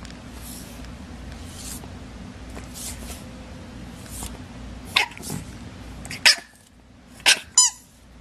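A pet animal making a few short, sharp sounds over a steady low hum: soft breathy hisses at first, then several loud sudden ones in the second half, the last a short pitched call.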